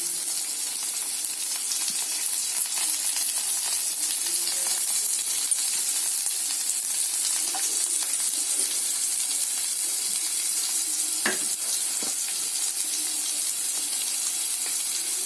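Oil sizzling in a pan as a tempering of urad dal, cumin, mustard seeds, curry leaves, green chillies and onions fries, with a steady hiss. A spoon stirring it knocks against the pan a couple of times about two-thirds of the way through.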